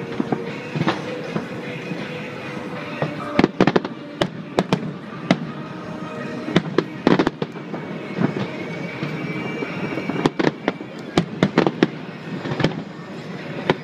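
Aerial fireworks shells bursting in a string of sharp, irregular bangs, some in quick clusters, over a steady background of ambient noise.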